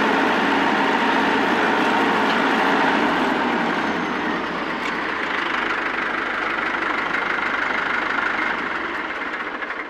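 Tractor engine running steadily, dying away near the end.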